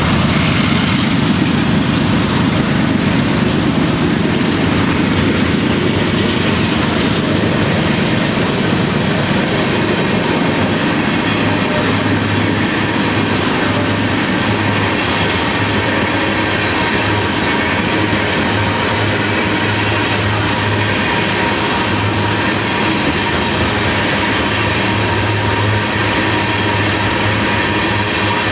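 Freight train rolling past: the steady rumble and clatter of railcar wheels on the rails, with a thin steady whine above it. About eleven seconds in, a low pulsing hum joins it.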